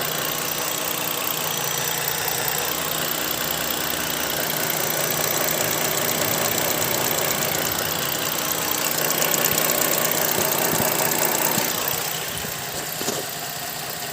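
Holden VZ Commodore engine idling with a rapid, light ticking. Others have put the tick down to the evap purge solenoid; the owner wonders whether it is the lifters.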